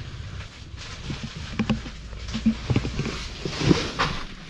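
Rustling and clicking of a phone being handled close against clothing and bedding, over a low steady rumble inside a bus.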